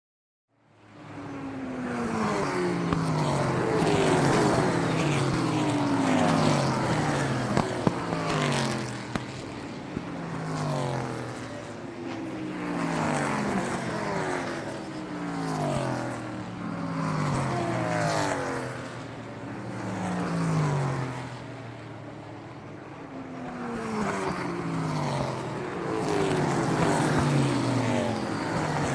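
Car engine starting up out of silence about half a second in, then running with its pitch and loudness swelling and falling in repeated waves every two to three seconds.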